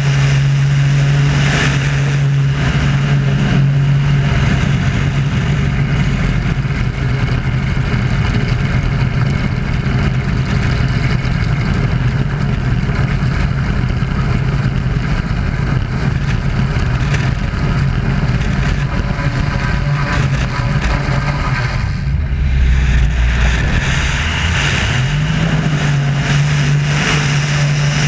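Wolf Pitts Pro aerobatic biplane's engine and propeller running at high power in flight, heard from a camera mounted outside the aircraft with a rush of air over it. The engine note drops briefly a few seconds before the end, then rises again.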